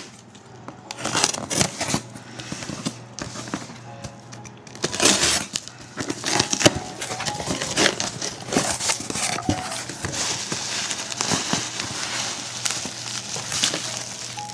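Plastic packaging crinkling, rustling and tearing in irregular bursts as a parcel of trading cards is unwrapped by hand.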